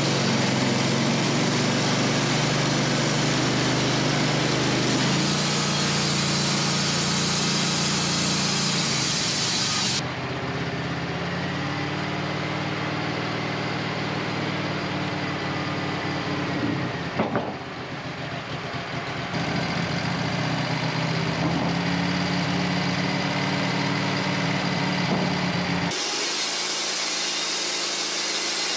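Wood-Mizer LT15 portable band sawmill running, its engine drone steady as the band blade saws through a hard maple log. The sound shifts abruptly several times, and there is a brief sharp noise about 17 seconds in.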